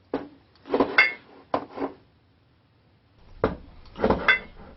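Clinks and knocks of a shaving mug being handled and set down, some with a brief ringing. A little past halfway, water starts running with more knocks.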